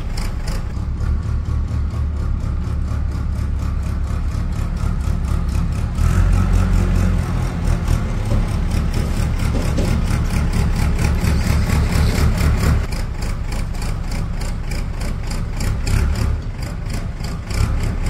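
An engine idling steadily with a low, even pulsing, somewhat louder and heavier from about six seconds in until about thirteen seconds.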